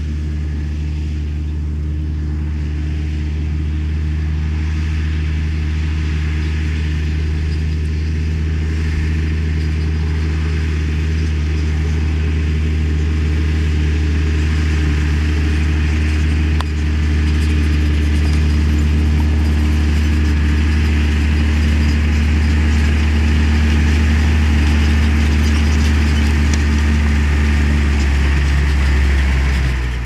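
New Holland 6050 tractor's diesel engine running steadily under load while pulling a Kverneland four-furrow plough through the soil. It gets a little louder about halfway through.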